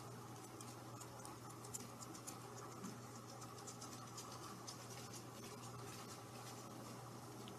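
Faint, irregular light scratching and ticking as a kitten paws at a pompom wand toy on a fabric sofa, over a steady low hum.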